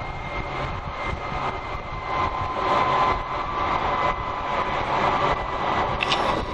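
Steady running noise inside an E5 series Shinkansen passenger car: a continuous rumble and hiss with a faint steady whine.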